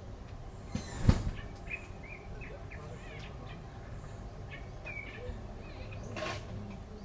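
Short bird chirps, several in a row, over a steady low background rumble, with one sharp knock about a second in and a brief scrape-like noise near the end.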